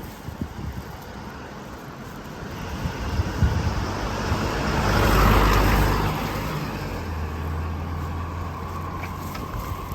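A road vehicle passes close by. Its noise builds to a peak about five seconds in and then eases off, leaving a steady low hum.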